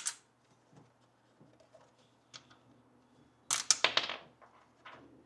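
Sharp clicks and light clattering as the two spacers are pushed out of the rubber gasket in a Honda Grom's stock rear fender. A click at the start and a few faint ticks are followed by a louder burst of clatter about three and a half seconds in.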